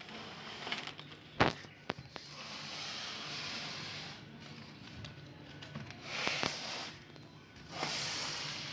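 Clear plastic stretch wrap crinkling and rustling as it is handled around a cardboard box, in several swells, with a sharp knock about a second and a half in.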